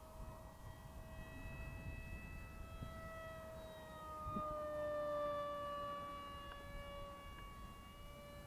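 Radio-controlled model MiG-35 jet flying past, its motor making a steady high whine that grows loudest about halfway through as the pitch drops slightly. Wind rumbles on the microphone underneath.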